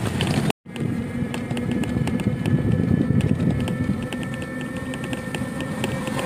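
Running noise of a small vehicle being ridden along a wet road: a steady hum with a thin high whine and rapid light rattling ticks. The sound drops out briefly about half a second in.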